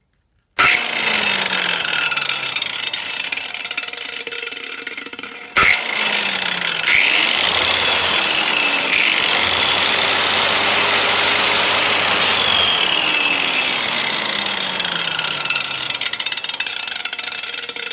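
APT angle grinder switched on about half a second in and running free at speed with its motor whine, a sudden jump in level about five and a half seconds in, then running on steadily before tailing off near the end.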